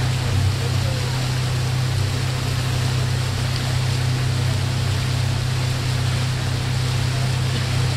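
Boat engine running with a steady low hum, with water rushing past the hull.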